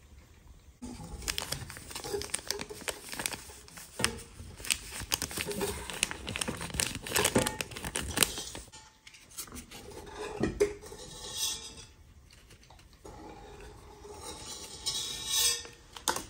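A metal scoop scraping and clinking in a glass jar of flour as flour is spooned into a drinking glass, with a paper sachet of baking powder crinkling. The clatter is busiest for the first eight seconds or so, then turns sparser.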